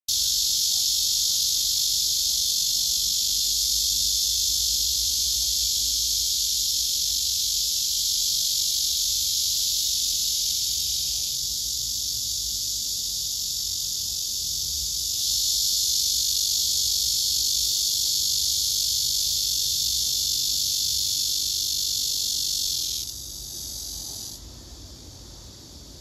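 Male cicada singing its courtship song: a loud, continuous, high buzz that drops sharply about three seconds before the end, leaving a fainter buzz.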